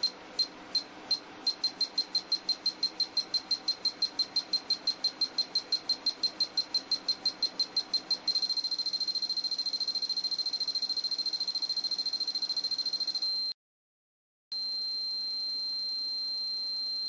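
Replica Battle Royale collar's electronic countdown beeper sounding high-pitched beeps that speed up to about six a second. About eight seconds in they merge into a rapid trill, and after a break of about a second they give way to one steady tone as the countdown runs out.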